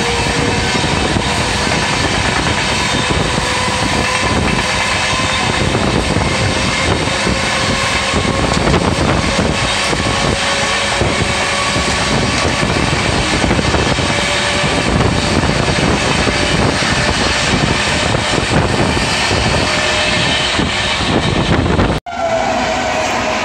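Two trains running side by side at speed, heard from the open doorway of one: steady rush of wheels rattling on the rails and moving air, with a faint whine slowly rising in pitch. About 22 seconds in the sound cuts off abruptly to a train passing a station platform.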